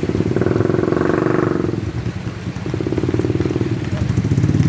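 Motorcycle engine running and revving: the revs rise about half a second in, drop back near two seconds, then build again toward the end.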